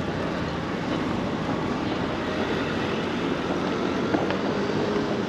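Steady city street noise with a low traffic rumble.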